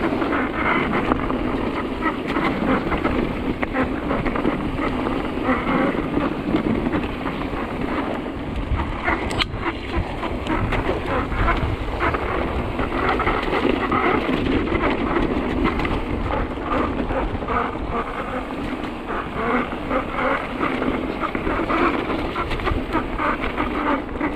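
Mountain bike being ridden down a rough trail: a steady rush and rattle of tyres and bike over the ground, with one sharp knock about nine seconds in.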